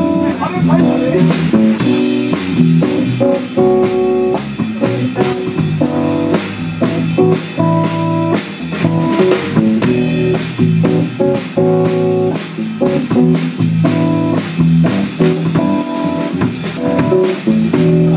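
Band playing an instrumental passage: guitars strumming chords over bass guitar and a drum kit keeping a steady beat.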